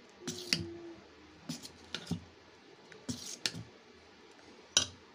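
A spoon stirring thick dosa batter in a stainless steel bowl, knocking and scraping against the bowl's side in a series of short, separate clicks. One knock near the start briefly rings.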